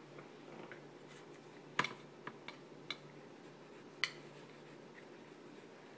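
A handful of short, sharp clicks and taps of small hard objects on a desk while a child colors, about five between two and four seconds in, the first the loudest, over a faint low steady hum.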